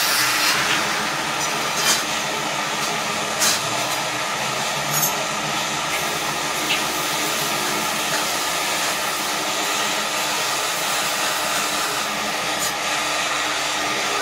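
Handheld gas torch burning with a steady hiss as it scorches the wood, with a few faint clicks about two, three and a half and five seconds in.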